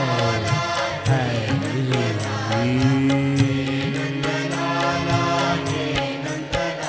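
Hindi devotional bhajan music: a melody of long held notes with slides and vibrato over a steady percussion beat, without recognisable words.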